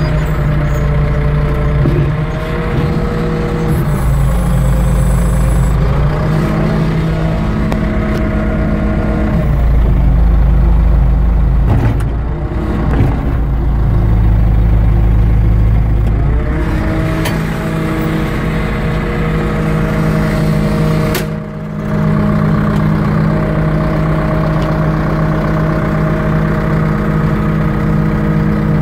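Cat 525 skidder's diesel engine running, heard from inside the cab. Its speed shifts up and down, and twice it works harder with a deeper rumble: briefly, then for several seconds mid-way.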